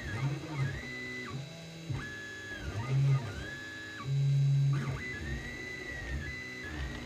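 Printrbot 3D printer's stepper motors singing in a string of pitched tones as the print head moves back and forth printing a part. Each move is a tone that ramps up in pitch at its start and down at its end. The loudest is a low tone nearly a second long just past four seconds in.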